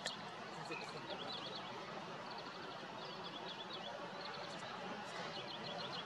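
Small songbirds chirping: short groups of rapid, high twittering notes every second or so, over a low steady background murmur.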